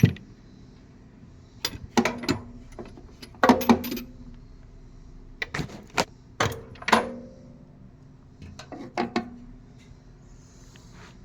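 Ingersoll Rand 1/2-inch drive steel impact sockets clinking and knocking against one another as they are handled and set down. They come in clusters of sharp clicks every second or two, some with a short metallic ring.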